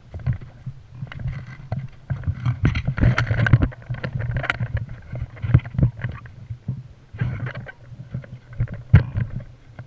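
Rumbling, knocking handling noise from a body-mounted GoPro as the wearer moves, with irregular thumps and short rustles throughout.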